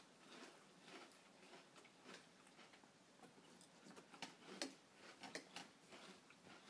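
Faint crunching and chewing of cereal in milk, with light spoon ticks against bowls: scattered short clicks, the sharpest a pair about four and a half seconds in.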